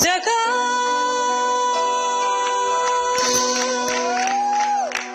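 A woman singing one long held final note into a microphone over a live band; applause and cheering start about three seconds in.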